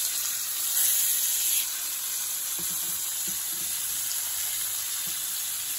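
Pompano fillets frying skin-side in a hot nonstick pan, a steady sizzle. The sizzle grows louder for about a second near the start as a fillet is turned with the spatula.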